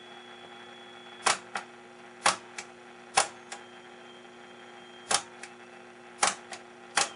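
Push-button station presets on a Philco 39-30 radio being pressed one after another, about six sharp double clicks roughly a second apart. Between presses the radio gives only a steady hum, faint hiss and a high thin whistle that comes and goes, with no station coming in.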